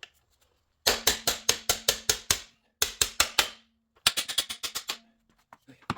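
Quick hammer blows on metal in three runs, about six to eight strikes a second, with the struck part ringing on a steady tone underneath.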